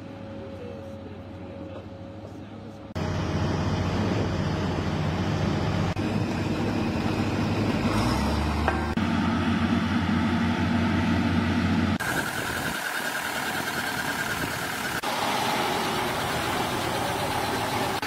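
Heavy machinery engines running steadily at a construction site. The sound changes abruptly every three seconds or so.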